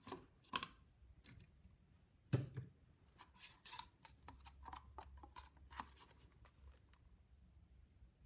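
Plastic paint cups being handled and set down on a table: a few soft knocks, the loudest about two seconds in, then light clicks and rubbing.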